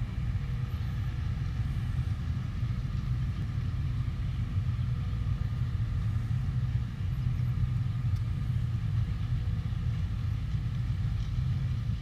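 Steady low engine rumble of maize-silage harvesting machinery, a silage truck and a Claas Jaguar 970 forage harvester chopping corn, with a faint steady whine above it.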